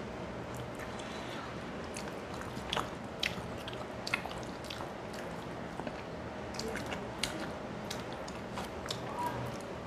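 A person chewing a mouthful of rice and rohu fish tail, with scattered small clicks and smacks spread through it, over a steady low background hum.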